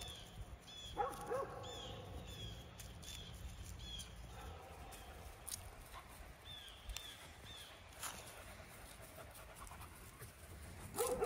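Great Pyrenees puppy giving a couple of short whimpering cries about a second in, then fainter whines, over a faint run of small high chirps repeating in the background.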